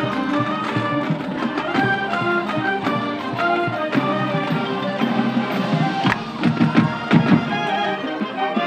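Marching band playing a tune, clarinets and other winds carrying the melody over drums, with a few louder drum strikes about six to seven seconds in.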